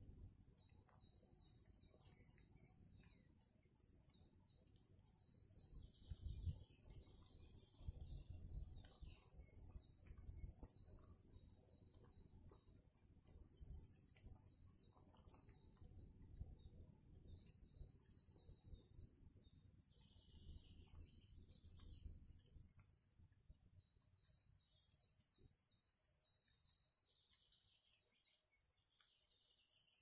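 Songbirds singing faint, high, thin notes in rapid repeated phrases, almost without pause, over an uneven low rumble.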